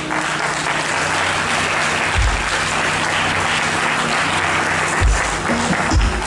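Congregation applauding steadily, over a held low musical note, with three low thuds near the middle and end.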